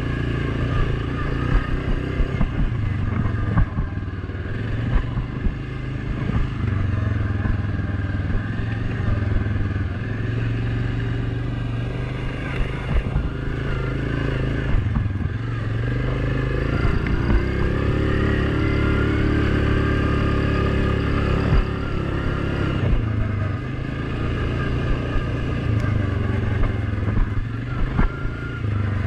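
Off-road vehicle engine running steadily while driving a trail, with frequent knocks and rattles from the machine jolting over rough ground. Past the middle the engine's pitch climbs for a few seconds as it picks up speed.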